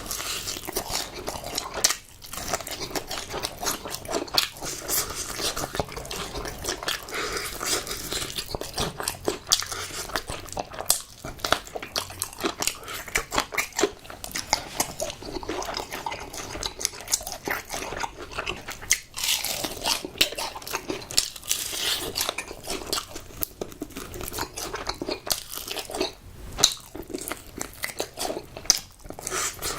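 Close-miked eating of crispy fried chicken: repeated crunchy bites and chewing, with dense crackling of the fried coating.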